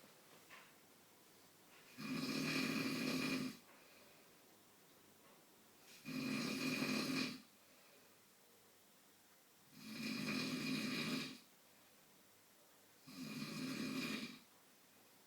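A man snoring in his sleep: four snores, each about a second and a half long, coming one every three to four seconds with quiet between them.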